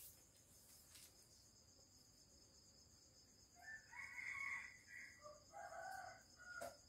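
A rooster crowing once, faintly, starting about halfway through and lasting about two and a half seconds. A short click follows near the end.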